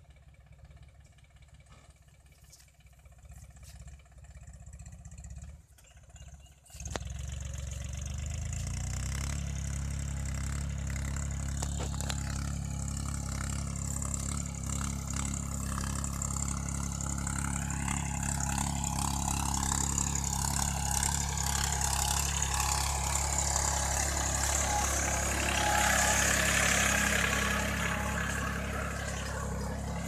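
Compact tractor's diesel engine running steadily as it pulls a tined cultivator through the soil. Faint at first, it jumps louder about seven seconds in, then keeps growing louder as the tractor draws near, loudest near the end.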